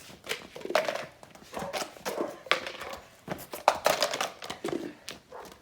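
Small plastic cones being knocked over and set back upright, with scuffing running footsteps: a string of irregular knocks and scrapes about one or two a second.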